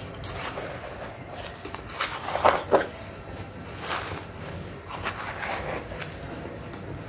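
Handfuls of damp, crumbly earth poured and dropped onto a wet, muddy patch of dry grit: a run of crumbling, gritty pours and soft thuds, the loudest a little over two seconds in.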